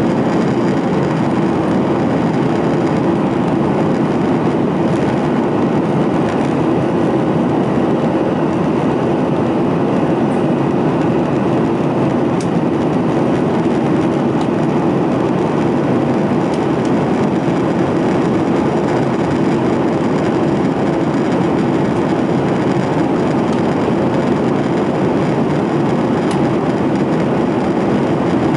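Steady cabin noise of a Boeing 737-800 climbing out: an unbroken low drone of its CFM56-7B engines and rushing air.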